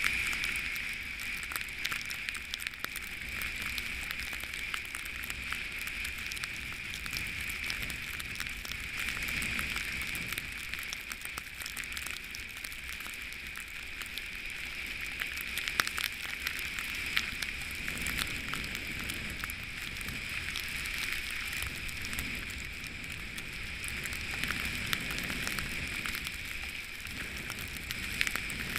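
Snowboard running through fresh powder snow: a steady hiss with a constant fine crackle of snow spray hitting the camera.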